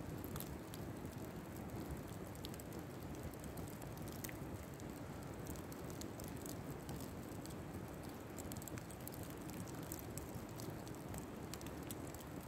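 Open fire burning in a fire pit: a steady low rushing sound with many small, sharp crackles and pops scattered throughout.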